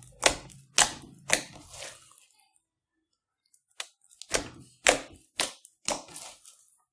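Fingers poking and folding slime packed with foam beads, making sharp, crackly squishes about twice a second. About ten in all, with a pause of about a second and a half in the middle.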